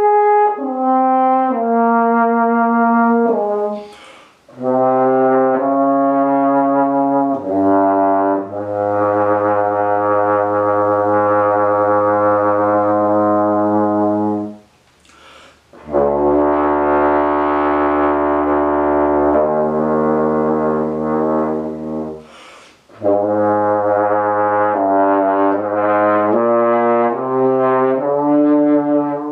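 French horn playing a slow passage of long held notes, with short breaths taken between phrases about 4, 15 and 23 seconds in.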